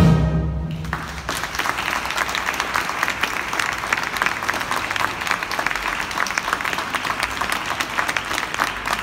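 A military wind band's closing chord cuts off within the first second, followed by an audience applauding steadily.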